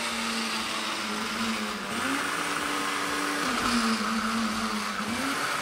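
Motorised 00-gauge model railway turntable running: its small electric motor and gearing whirr steadily as the deck carries the locomotive round, the hum rising and falling a little in pitch.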